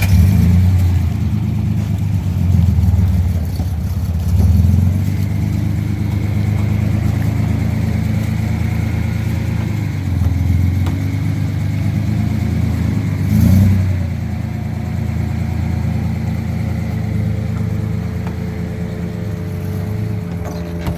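Datsun 280ZX's inline-six engine running just after being started, idling with its note swelling briefly a few times as the throttle is blipped.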